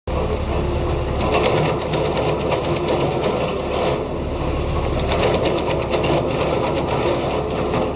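Tractor-driven twin-shaft wood chipper running steadily with a low hum, with two stretches of rapid cracking as wood is cut by its knives.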